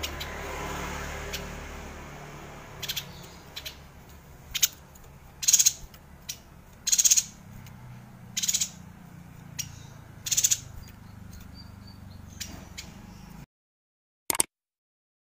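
Caged yuhina giving a series of short, high calls, one every second or so, which stop near the end. A brief click follows.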